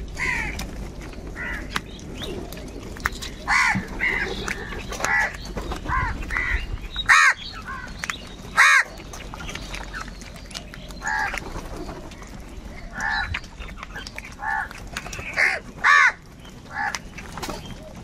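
A flock of house crows cawing, many short calls one after another and sometimes overlapping, with two louder caws about seven and nine seconds in.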